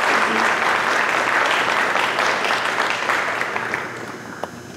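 Small audience applauding, then dying away near the end.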